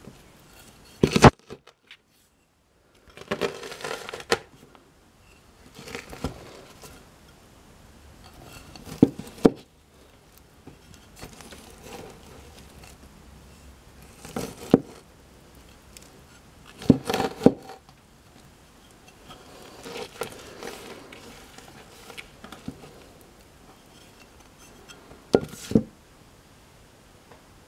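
A stone slab crushing a pomegranate half on paper: irregular sharp knocks of the stone coming down a few seconds apart, with softer stretches of wet squashing and crunching of the seeds and flesh in between.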